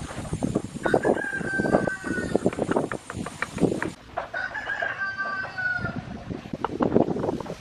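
A rooster crowing twice, each call lasting about a second and a half, over repeated short taps and knocks of stone veneer pieces being set into mortar.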